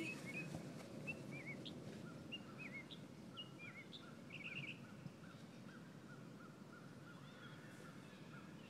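Faint birdsong: scattered short chirps and a quick trill in the first half, then a run of short notes repeated evenly, over a quiet outdoor background.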